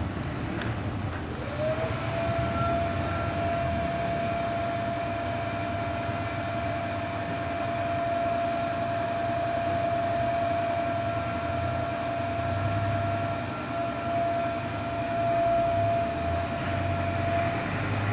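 Steady machine drone with a low rumble and a held whine that rises into pitch about a second and a half in and stops near the end.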